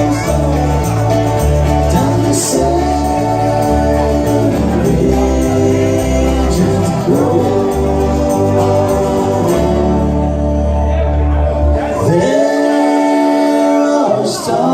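Live band music: a stepping bass line under sustained multi-part vocal harmony. About twelve seconds in, the bass drops out, leaving the harmonising voices nearly alone.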